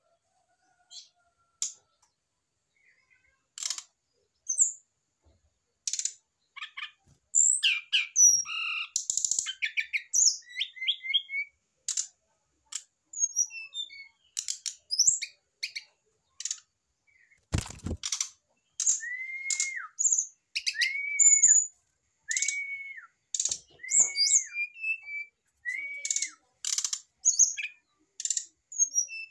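Male brown-chested jungle flycatcher singing: a run of quick, sharp, high chirping notes, and in the second half a slurred arched note repeated about six times, a second or so apart. A single sharp knock a little past the middle.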